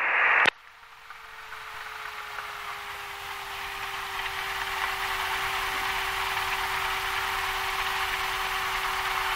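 Cessna 172's engine idling, heard inside the cabin as a steady hum with a constant tone. It grows louder over the first few seconds after a radio call cuts off, then holds steady.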